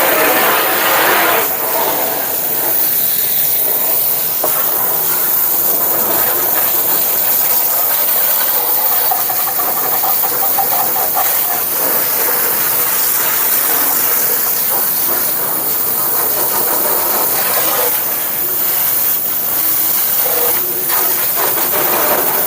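Steady hiss of water spraying from a hose, washing mud out of a flooded gas furnace.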